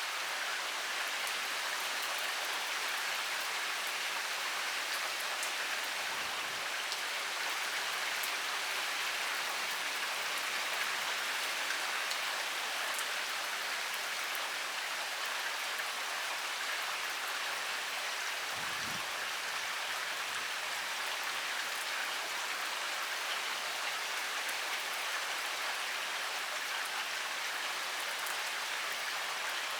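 Heavy rain pouring steadily, a dense even hiss of drops with fine patters.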